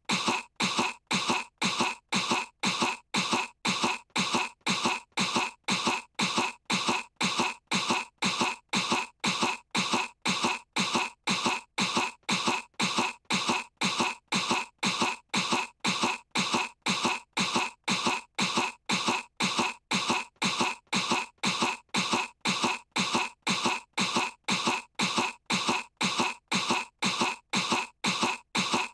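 A cartoon girl's put-on cough, faked to seem sick. One short cough is looped over and over, about twice a second, with every repeat the same.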